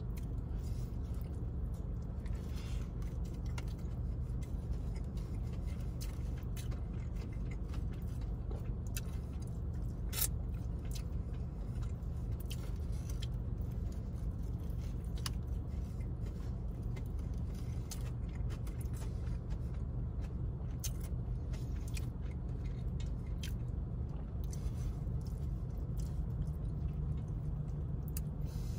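Steady low hum of a car idling, heard inside the cabin, with scattered soft clicks from biting into and chewing a fried chicken sandwich.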